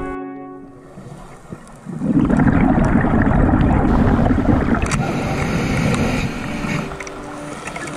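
Scuba regulator exhaust bubbles rushing and gurgling underwater as a diver breathes out. A long surge starts about two seconds in and eases near the end.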